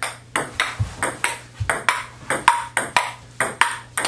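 Ping pong ball clicking back and forth between paddles and table in a rally, about four sharp hits a second.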